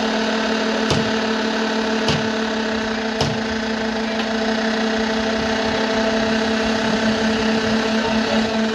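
A machine motor running with a steady mid-pitched hum during a concrete pour, pulsing slightly near the end. Three light knocks about a second apart come early in the hum.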